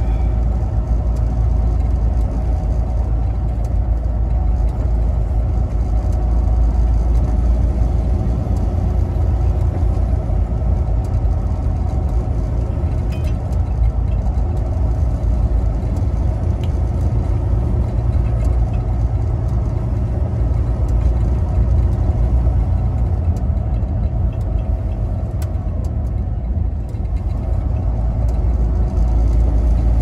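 Semi truck's diesel engine and tyres droning steadily inside the cab while driving on a snow-covered highway.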